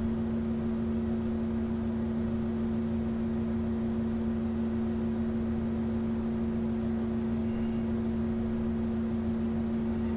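Steady background hum: a constant low tone with a fainter, higher one over an even hiss.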